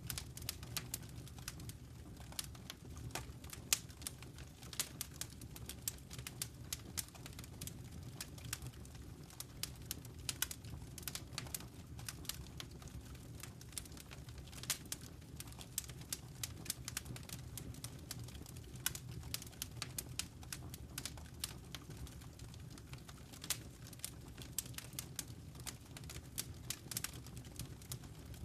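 Wood fire in a fireplace crackling: many irregular sharp pops and snaps over a steady low rumble.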